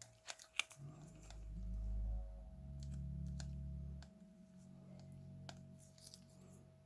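Several sharp clicks from a small cassette Walkman mechanism being handled. After them come low, steady droning notes that step to a new level twice, under a faint steady tone, with a few more clicks later on.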